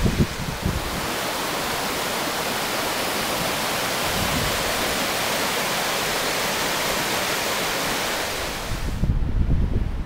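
A river in full flood rushing over a small waterfall and rapids: a steady roar of whitewater. Near the end the water sound drops away suddenly and gusty wind buffeting on the microphone takes over; a little of the same buffeting is also heard at the start.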